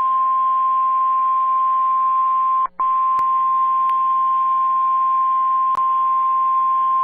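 NOAA Weather Radio 1050 Hz warning alarm tone: one loud, steady, high beep over light radio hiss, with a brief dropout just before three seconds in. It signals that a warning is about to be broadcast.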